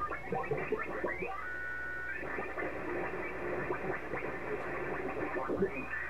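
Software-defined radio (Ettus X310 running GQRX) demodulating lower sideband while being tuned across the 40-metre amateur band. Signals sweep up and down in pitch as the dial moves, with a short cluster of steady Morse or data tones about a second and a half in. After that comes jumbled, garbled sideband chatter and band noise, all held below about 3 kHz by the receiver's filter.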